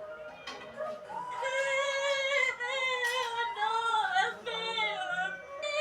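Background music with a high, wavering singing voice in short phrases.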